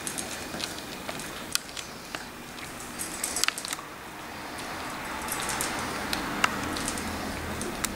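Two puppies eating dry kibble from a stainless steel bowl: irregular clicks and crunches of kibble against the metal and between teeth, with a quick run of clicks about three and a half seconds in.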